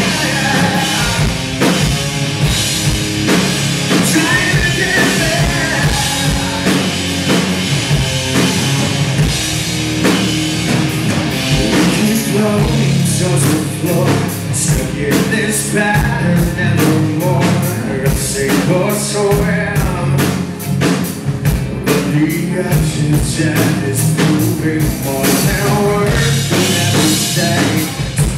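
Live rock band playing: distorted electric guitars and a drum kit under a male lead vocal singing.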